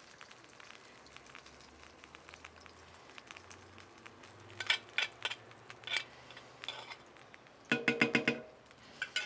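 Metal spoon scraping and clinking against a glazed clay bowl as the last of the beaten egg is scraped out, with a quick run of ringing taps about eight seconds in. Faint sizzling of the meat frying underneath.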